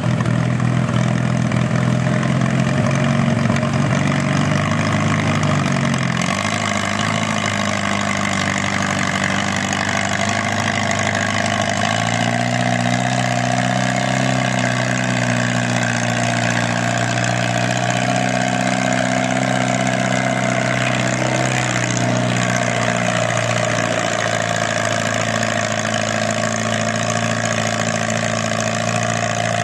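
Allis-Chalmers farm tractor engine working under load as it pulls a transfer sled; the engine note dips about six seconds in and comes back up about twelve seconds in.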